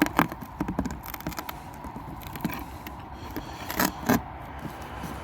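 Sharp knocks and scrapes of something being handled, a pair at the start and a louder pair about four seconds in, over a steady low rumble.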